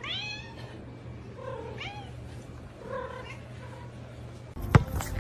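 A cat meowing a few times: a falling meow at the start, then softer short meows. A few sharp knocks come near the end.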